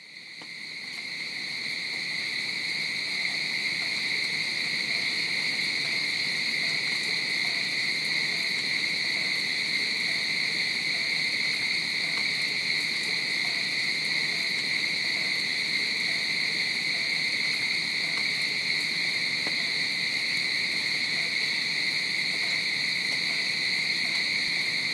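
Forest insect chorus: a steady, unbroken high-pitched drone that fades in over the first two seconds and then holds level.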